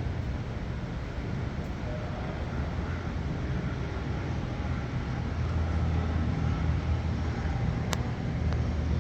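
Steady low engine rumble, growing a little louder about halfway through, with one sharp click near the end.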